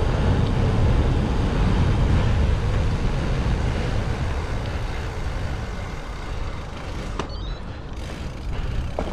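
Town traffic and road noise heard from a moving bicycle: a steady noise that eases off after about six seconds.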